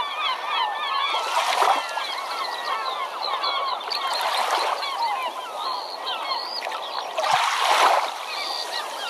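A flock of birds calling over and over with short rising and falling calls, with three louder rushes of noise, like surf washing in, about every three seconds.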